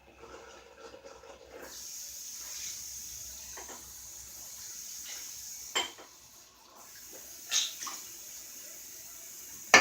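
Tap water running into a sink, with a few sharp knocks, the loudest near the end.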